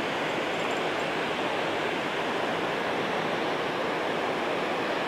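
Steady rush of water pouring over a dam spillway, an even noise with no change in level.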